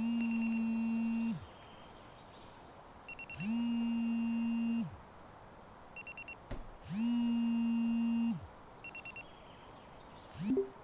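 Smartphone alarm going off: three vibration buzzes of about a second and a half each, alternating with quick runs of four short high beeps. A short knock comes near the end.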